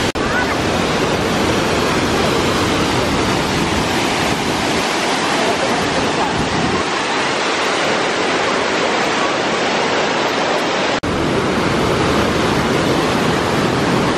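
Waterfall and whitewater rushing over rocks: a loud, steady wash of falling water, with a brief drop about eleven seconds in.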